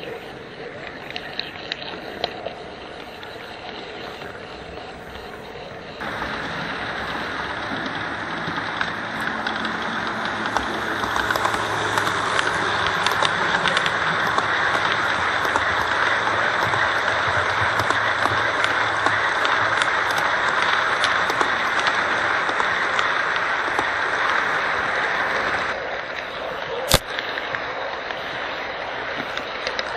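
HO-scale model trains running on the layout: the steady rolling of small metal wheels on the rails and the hum of the locomotive motors, dotted with light clicks from rail joints. It gets louder about six seconds in, drops back about four seconds before the end, and there is one sharp click near the end.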